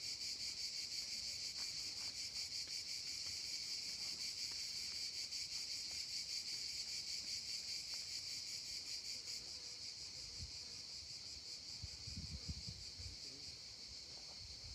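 A chorus of cicadas singing steadily with a fast pulsing texture, easing off a little over the last few seconds. A few low rumbles come in near the end.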